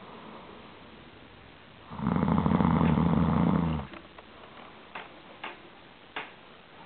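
A sleeper snoring: quiet breathing, then about two seconds in one loud, rough snore lasting nearly two seconds. A few faint clicks follow near the end.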